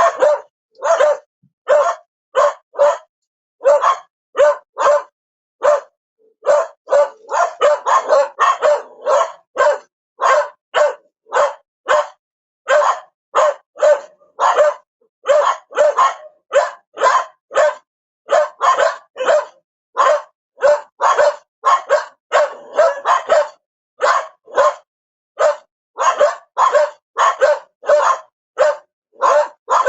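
A dog barking over and over in short, sharp barks, about two a second, with quicker runs of barks now and then.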